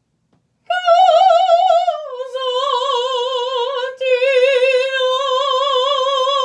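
A woman sings "cosa dirà" unaccompanied in a trained classical, operatic style with wide, even vibrato. She holds a higher note first, then steps down to a lower note about two seconds in. That note is sung again on the final "rà" and held long.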